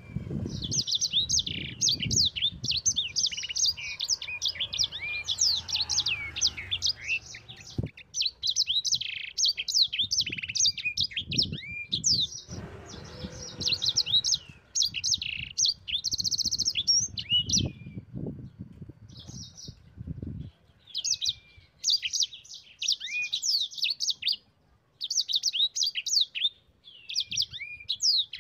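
Sanger songbird singing in a long, fast rolling song of high chirps and trills, broken by a few short pauses.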